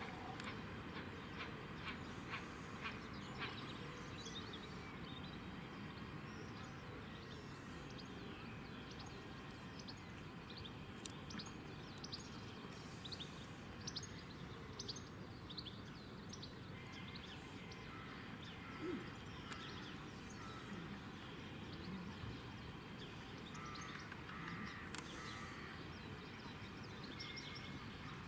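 Outdoor lakeside ambience: a steady background hum of noise with small birds chirping and calling throughout, in a run of repeated calls about two-thirds of the way through and again near the end.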